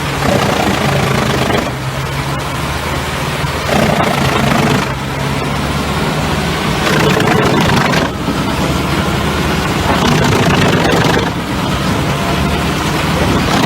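Diesel engine of a crane-fed forestry drum chipper running steadily under load, with the coarse grinding crunch of logs being chipped. The noise swells and eases every couple of seconds as wood is fed in.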